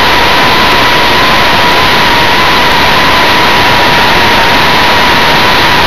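Multiplex FunJet Ultra's electric motor and pusher propeller in flight, heard from an onboard camera: a steady high whine, its pitch wavering slightly, over loud wind rush.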